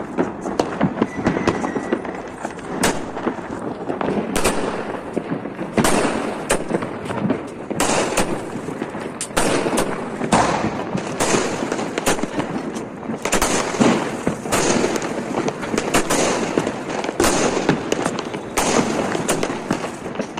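Fireworks and firecrackers going off all around: a continuous crackle of many overlapping bangs and pops, with louder single bangs every second or so.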